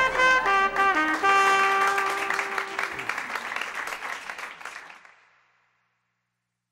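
Soundtrack music whose closing notes fade steadily away, ending in silence about five seconds in.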